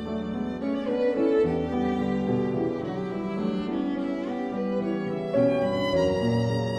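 Background music led by bowed strings, a melody moving from note to note over sustained lower notes.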